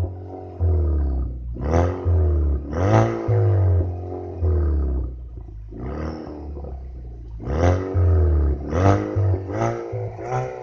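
Chevrolet Camaro 2.0's turbocharged four-cylinder engine revved through an aftermarket sport exhaust: about six sharp blips that each fall back to idle, with a steady low rumble between them.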